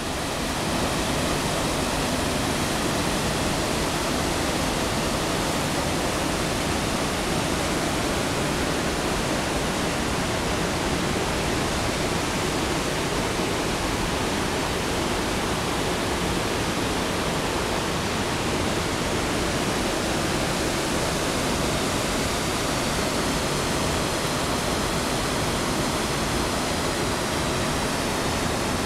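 Ohanapecosh River pouring over small waterfalls and rapids into a pool: a steady, even rush of water.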